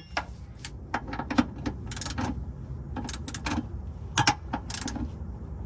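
Click-type torque wrench set to 36, ratcheting in short runs of sharp clicks as the transmission mount bolts are torqued down.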